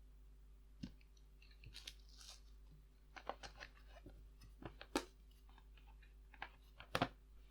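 Small hard plastic pieces being handled: irregular faint clicks and taps, with sharper clicks about five and seven seconds in.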